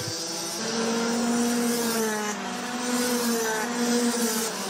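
Racing karts' Rotax Max DD2 125 cc two-stroke engines running on track, a steady buzz that wavers slightly in pitch, with a brief rising whine about two seconds in.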